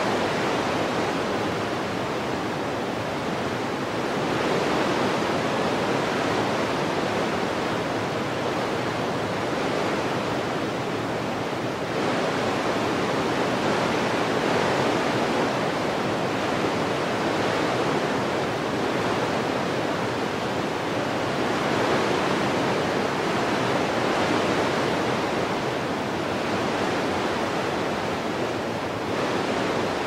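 Wind blowing in gusts: a steady rushing noise that swells and eases every few seconds.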